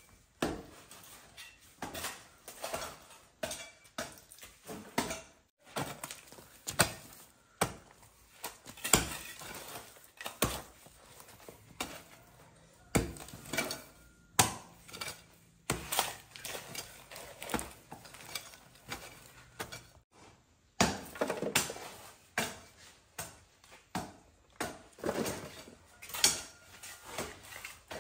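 A bladed hand tool chopping repeatedly into soil and bamboo roots to dig out bamboo shoots: sharp strikes about one or two a second at an uneven pace, with a short pause partway through.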